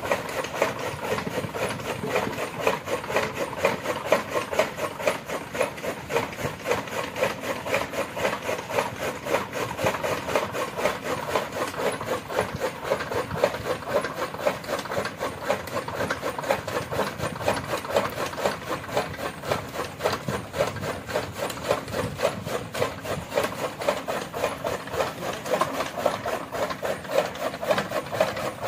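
Bull-driven gear toka (flywheel chaff cutter) running, its blades chopping green fodder in a fast, even rhythm of cuts.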